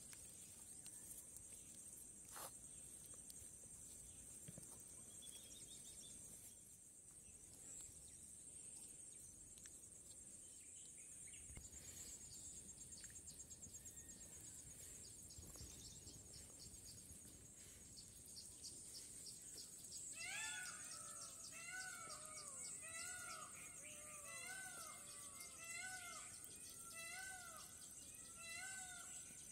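Steady high, fast-pulsing buzz of insects in the grass. About two-thirds of the way in, a run of short, rising-and-falling animal cries starts, a couple per second, and keeps going.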